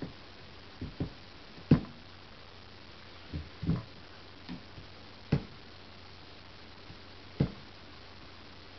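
Acer Aspire 1410 laptop touchpad button clicked about nine times at irregular intervals, sharp single clicks with a few in quick pairs.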